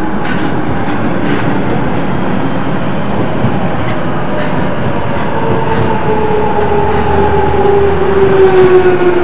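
London Underground Jubilee line 1996-stock train running alongside the platform, its wheels clicking a few times over rail joints. From about halfway its electric traction motors give a whine that slowly falls in pitch as the train slows.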